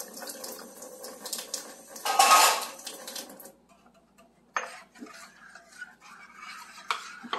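Water poured into a stainless steel saucepan of rice-flour batter, loudest about two seconds in. After a short pause, a metal spoon stirs the batter, scraping and clinking against the steel pot with a couple of sharp knocks.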